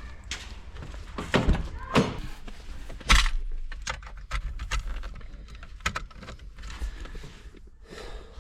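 Irregular plastic clicks, knocks and handling noise as a neon tube's plug is pushed hard into a car's cigarette lighter socket, with one loudest knock about three seconds in.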